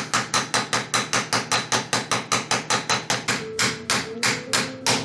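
Steady rapid hammer blows, about five a second and easing to about four, drive a new wheel bearing into an ATV rear knuckle housing through the old bearing's ground-down outer shell. In the second half the blows take on a more solid ring, the sound that tells the bearing is seated all the way in.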